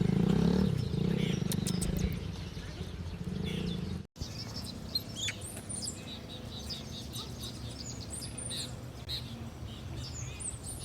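A motorcycle engine running, dying away within about the first two seconds. After a sudden cut about four seconds in, small birds chirp and whistle repeatedly.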